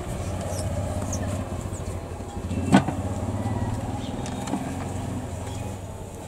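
A motor vehicle engine running close by, a steady low hum that fades away near the end, with one sharp knock about three seconds in.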